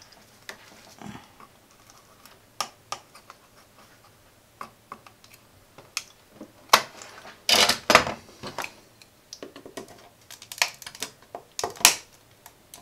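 Irregular clicks and taps of small metal hand tools, a soldering iron and a screwdriver, against a printed circuit board and the tabletop as components are worked loose. There is a quick run of clicks about halfway through and more near the end.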